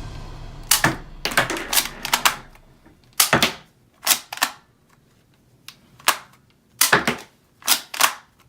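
Toy guns being worked and fired: a string of about a dozen sharp plastic clacks and cracks, some in quick pairs, with uneven gaps of up to a second.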